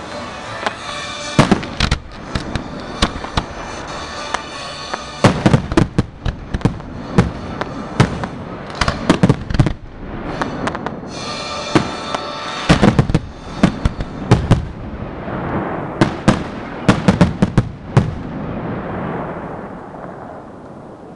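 Aerial firework shells bursting in a display: volleys of sharp bangs in quick succession with crackling between them, thinning out near the end into a fading hiss. Music plays underneath.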